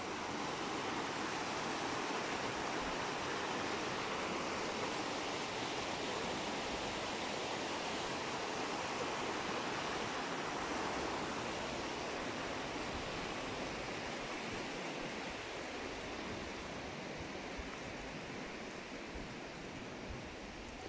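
Shallow stream rushing down a stone channel over small cascades: a steady rush of water that sinks a little over the last few seconds.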